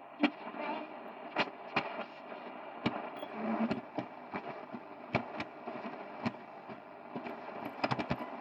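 Radionette Menuett valve radio's loudspeaker giving a steady hiss of static with irregular sharp crackles, with no station coming through clearly.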